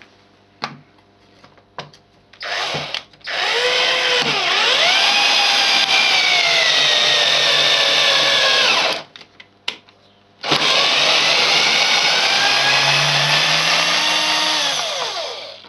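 Cordless drill-driver running on a home-made transformer mains power supply, driving a 70 mm wood screw into wooden bars. A short blip of the motor comes first, then two long runs with a pause and a few clicks between. In each run the motor's whine drops in pitch as the screw bites and the load rises. The speed falls most as the screw head sinks into the wood, where the current jumps to about 10 amps.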